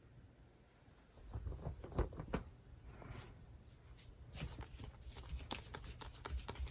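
Faint, irregular soft clicks and taps, like small objects being handled, in a small quiet room.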